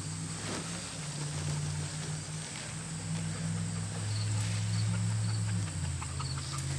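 Insects trilling steadily and high-pitched in the garden, over a continuous low hum that swells for a couple of seconds past the middle.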